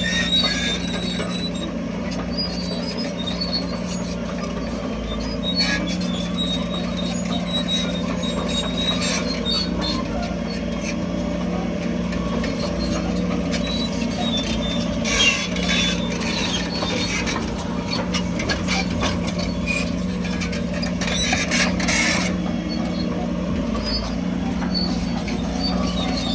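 Crawler bulldozer's diesel engine running steadily under load, with the high squealing of its steel tracks over it. Two short bursts of broad noise come about two-thirds of the way through and again near the end.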